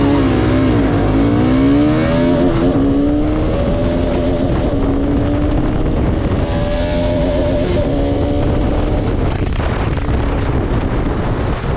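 Two Bajaj Pulsar RS200 motorcycles' single-cylinder engines accelerating together in first and then second gear, the engine note rising, then holding steadier.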